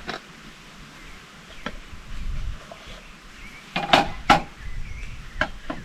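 A few sharp knocks and clinks of cooking gear being handled, the loudest two close together about four seconds in.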